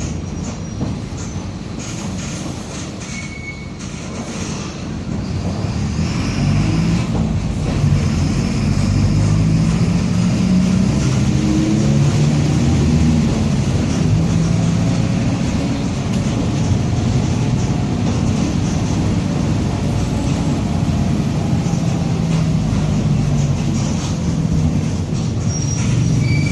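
Mercedes-Benz OF-1722M city bus running, its diesel engine pulling through the gears with a whining growl from the differential. The growl is a sign of a worn differential. It is quieter for the first few seconds, then grows louder from about six seconds in as the bus picks up speed.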